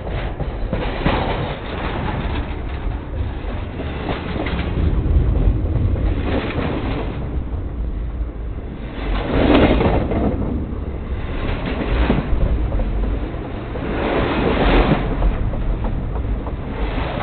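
Train cars rolling directly over a microphone set on the track: a deep, steady rumble with louder swells every two to three seconds.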